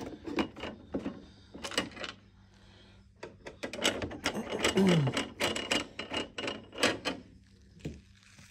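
Irregular clicks, taps and scraping of a screwdriver and hands working the plastic casing of an HP Ink Tank printer as its screws are undone.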